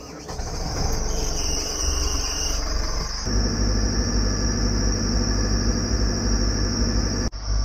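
Volvo Penta D4-300 four-cylinder diesel inboard on a cold start: the starter cranks for about three seconds, then the engine catches and settles into a steady idle with a high-pitched whine over it.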